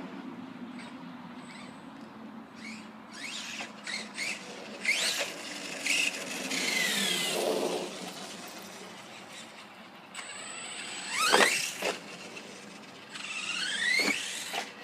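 Electric motor of a Redcat Earthquake 8E RC truck whining as the throttle is worked, the pitch sliding up and down several times. The loudest rise comes about eleven seconds in, with a few short knocks scattered between.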